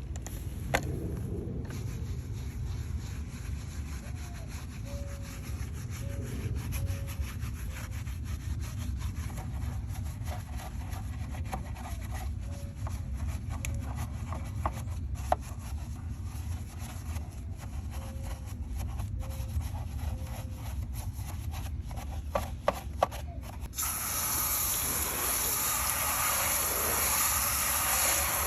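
A brush scrubbing a tire, a steady rasping rub with occasional clicks, during deep cleaning of the tire. About 24 seconds in, an even spray hiss takes over.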